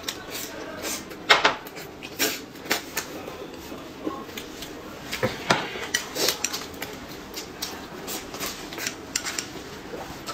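Eating sounds: chewing and wet mouth smacks on a fried starch sausage, with chopsticks clicking against a glass cup of dipping sauce, in short irregular clicks.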